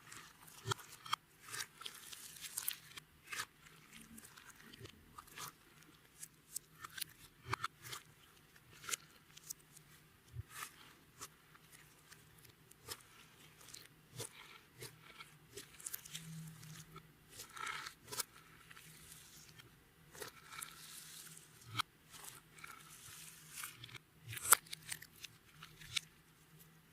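Hands kneading and squishing clear slime, giving irregular sticky clicks, crackles and small pops throughout.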